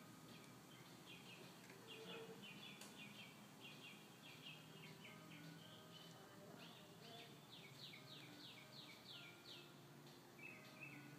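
Faint bird chirping: a long series of short, high repeated notes, quickening into a run of quick down-slurred notes about two-thirds of the way through.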